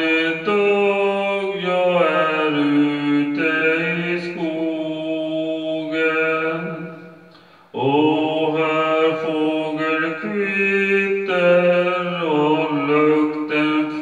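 A man singing a Swedish praise song in long, drawn-out notes. The first phrase fades out about seven seconds in, and a new phrase begins sharply just under a second later.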